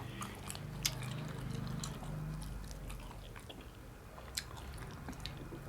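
Close-miked chewing of naan bread, with small wet mouth clicks, which she calls rubbery. A low hum runs under the chewing for the first two seconds or so.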